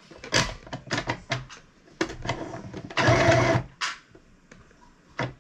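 Small electric sewing machine stitching in short bursts, the longest lasting under a second about three seconds in, with brief clicks and knocks between runs.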